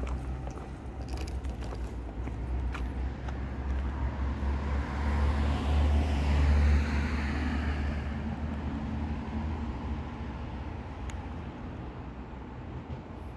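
A motor vehicle passing close by on the road: its rumble and tyre noise swell to their loudest about six or seven seconds in, then fade away.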